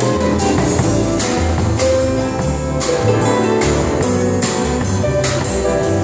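Live band playing a song: electric bass, a drum kit keeping a steady beat with cymbal hits, and electric guitar.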